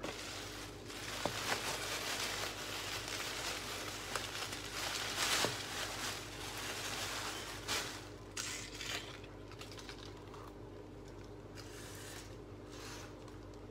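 Thin plastic grocery bag rustling and crinkling as a bunch of dead roses is stuffed into it, with a few light knocks. The rustling dies down after about eight seconds.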